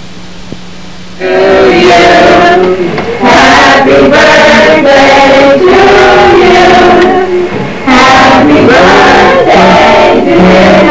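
A group of men and women singing loudly together, starting about a second in after a steady low hum.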